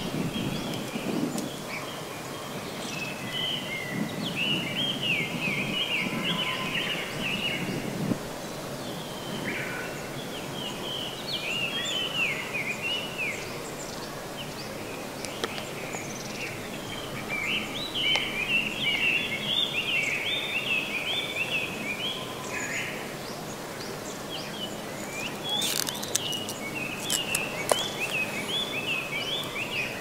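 Forest songbirds singing in repeated bouts of quick, twittering notes over a steady outdoor background hiss. A few sharp clicks come near the end.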